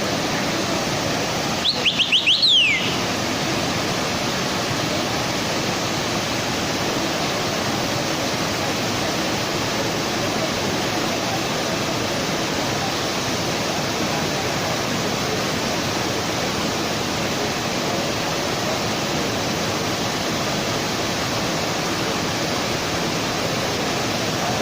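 Steady rushing noise from blast furnace plant equipment, with a brief run of about five quick falling chirps about two seconds in.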